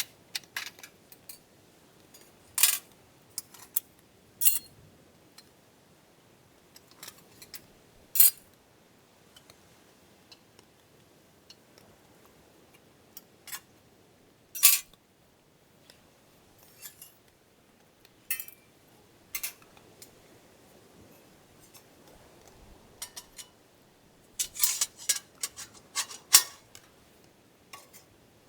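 Cutlery and cookware being handled: scattered sharp clinks and clicks at irregular intervals over a quiet background, bunching into a quick run of clatter near the end.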